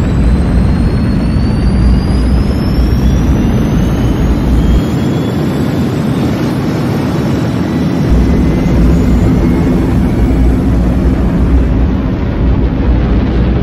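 Electronic dance music dominated by a loud, noisy rising sweep. The deep bass cuts out for about three seconds near the middle, then comes back.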